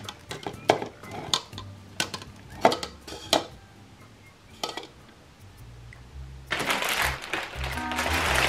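Hard plastic hand-blender parts and a plastic beaker being handled, clicking and knocking against each other several times. About six and a half seconds in, loud rustling and crinkling of plastic food packaging and a paper bag begins.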